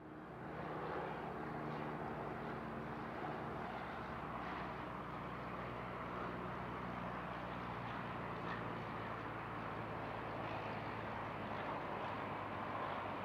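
Cessna 172S Skyhawk SP's four-cylinder piston engine and propeller running steadily, a low, even drone.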